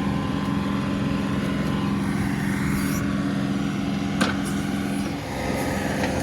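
John Deere 2038R compact tractor's diesel engine running steadily while it powers the 270B backhoe digging out a tree stump. A single sharp knock comes about four seconds in, and the engine note dips briefly about a second later.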